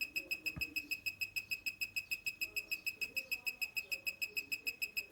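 Tattoo pen rig running on its power supply: a steady, rapid high chirping pulse, about nine a second, with a single click about half a second in.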